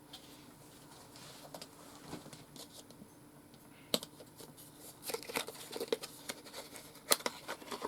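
Plastic clicks and rattles from Rubik's cubes being handled: a sharp click about four seconds in, then a quick run of clicks from about five seconds until near the end.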